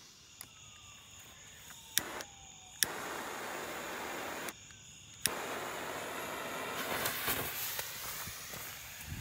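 A handheld torch clicks its igniter a few times and lights with a steady hiss, cuts out, then is clicked and lit again; about seven seconds in a crackling sputter builds as the bundled Roman candle fuses catch.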